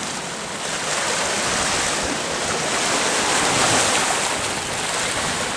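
Ocean surf: a steady rushing wash of waves that builds over the first second or so and eases a little near the end.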